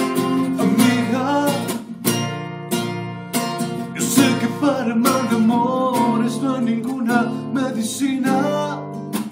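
Acoustic guitar strummed in a steady rhythm, with a man's voice singing over it without clear words.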